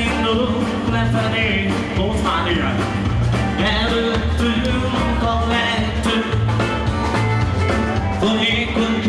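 A wedding dance band playing an upbeat rock-and-roll-style number with a steady, driving beat, with a voice singing over it.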